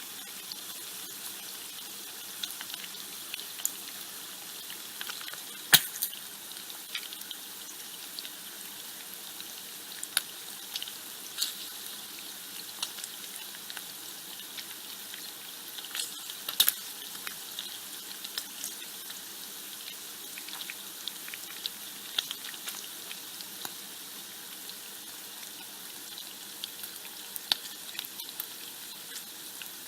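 Bacon frying: a steady high sizzle with crackling and sharp pops scattered through it, the loudest pops about six seconds in and again around sixteen seconds.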